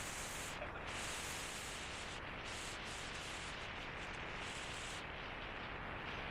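Wind buffeting a DJI Osmo Pocket's microphone during a fast electric-bike ride: a steady rushing hiss with no distinct sounds in it, its highest part cutting in and out every second or so.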